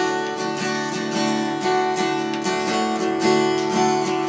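Acoustic guitar strummed in a steady, even rhythm, chords ringing without singing between sung lines.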